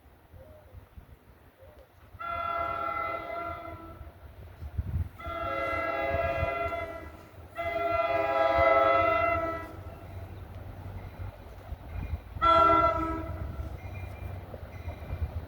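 New Jersey Transit commuter train's horn sounding three long blasts and then a short one, over the low rumble of the train.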